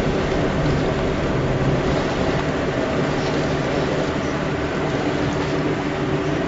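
Ship's engine running, a steady low drone with several constant tones, under an even rushing noise and low rumble.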